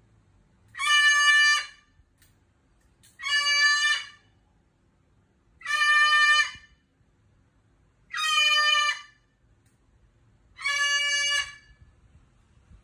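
Umbrella cockatoo screaming: five loud calls, each just under a second long and steady in pitch, repeated evenly about every two and a half seconds.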